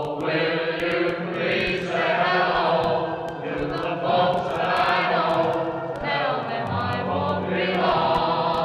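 Choir singing slow, held chords, with the notes changing every second or two.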